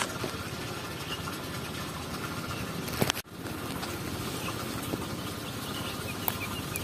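Steady outdoor background noise with no clear pitch, broken by a brief dropout a little over three seconds in, with a few faint clicks.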